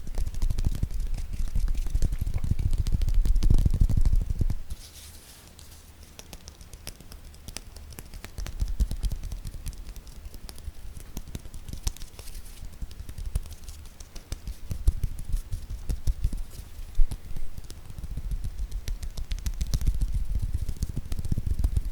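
Rapid, dense ASMR hand tapping, many quick taps and clicks with no talking. Louder low thumping under the taps in the first four seconds and again near the end, with lighter tapping in between.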